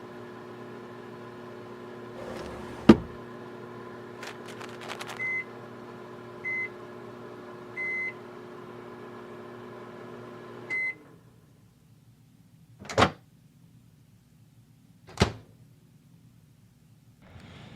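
Microwave oven running with a steady hum, with a sharp knock about three seconds in and a few light clicks. Short high beeps sound at intervals, and the hum cuts off with a beep near the middle, as the heating finishes. Two sharp clunks follow, a couple of seconds apart.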